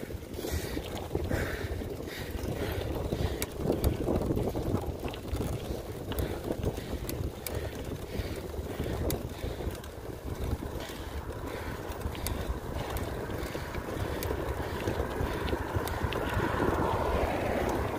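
Strong wind buffeting the microphone in a steady low rumble. A car coming the other way grows louder toward the end as it approaches and passes.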